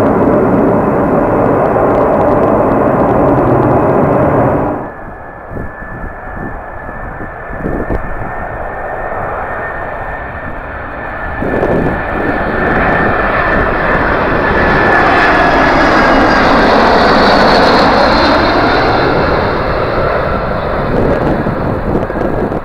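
An Ilyushin Il-76's four Soloviev D-30KP turbofans run loud as the jet rolls along the runway, until a sudden cut a few seconds in. Then the four turbofans of an Ilyushin Il-96 on final approach, gear down, grow from a distant rush to a loud whine and roar as it passes close overhead, loudest a few seconds from the end.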